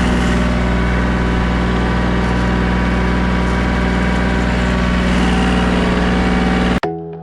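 Diesel tractor engine running at a steady speed. It cuts off abruptly near the end, giving way to music with struck notes.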